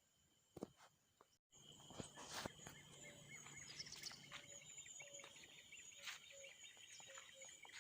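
Faint outdoor ambience of insects trilling steadily at two high pitches, with a short low call repeating about every half second and a few faint clicks. The sound cuts out briefly about a second and a half in, then carries on.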